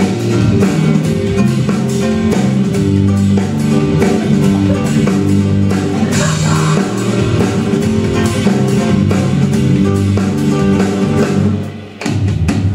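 Instrumental break in a recorded song: band music with pitched instruments and drum hits and no singing. The music dips briefly near the end before picking up again.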